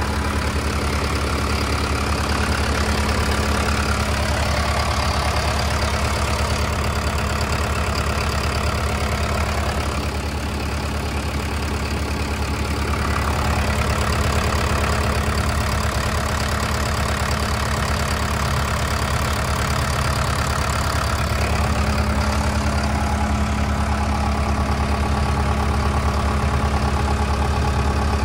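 Deutz diesel engine of a pushback tractor's built-in ground power unit running at a steady, unchanging speed, driving its generator, with a constant low hum.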